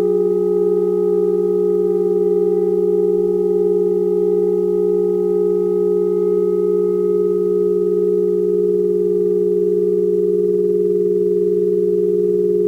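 Just-intonation drone from saxophone quartet and electronics: two steady low tones about an octave apart, the upper one beating slowly, while fainter high tones fade away over the second half.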